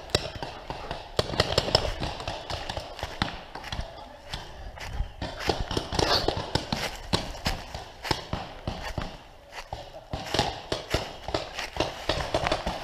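Footsteps running and scrambling through dry fallen leaves: an irregular run of crunches and thuds.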